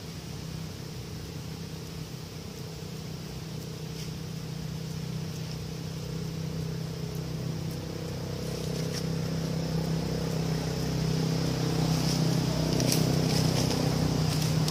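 A motor vehicle's engine running steadily, gradually getting louder, with a few faint clicks near the end.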